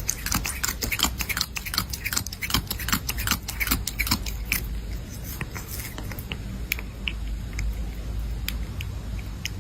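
Quick crisp crunching clicks, many a second for the first half and then thinning out, over a steady low hum.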